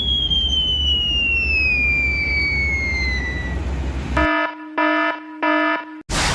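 A falling whistle, the dropping-bomb sound effect, glides steadily down in pitch over a low rumble for the first few seconds. Then a multi-tone horn gives three short honks, and just before the end a sudden loud burst begins.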